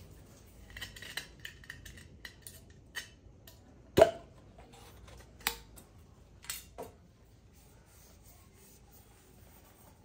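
Small metal tin cans and their lids being handled on a glass-topped table: light scraping and crinkling, a sharp clink with a brief ring about four seconds in, then a few more clinks and knocks.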